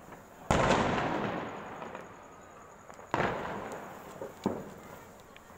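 Firecrackers going off: two loud bangs about two and a half seconds apart, each rolling away over a second or more, then a smaller sharp pop.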